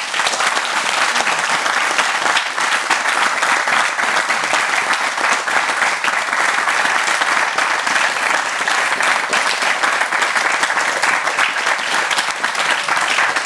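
A group of people applauding, starting suddenly and going on steadily, easing a little near the end.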